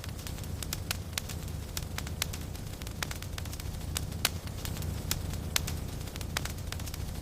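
Wood fire burning in a fireplace: a steady low rumble of the flames with sharp, irregular crackles and pops, several a second.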